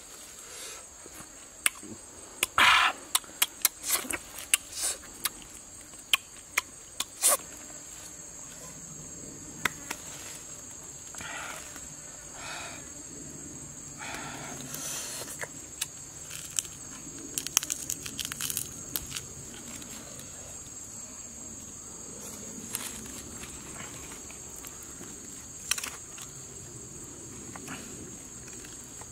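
Insects calling in one steady high tone throughout, with scattered short clicks and rustles of hands handling food and bamboo sticks, most of them in the first seven seconds and again past halfway.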